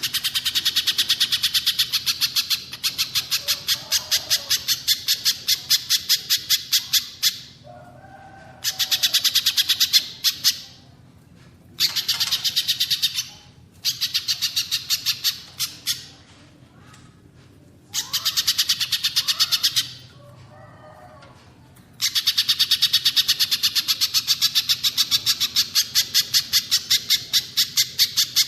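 Recorded songbird calls: fast strings of sharp, evenly repeated high notes, about five or six a second, coming in bouts of two to six seconds with short pauses between them.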